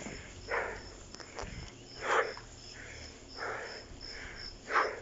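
A cyclist breathing hard on a long uphill climb, with loud breathy exhalations about every second and a half. Insects chirp throughout in a fast, even rhythm of about three pulses a second.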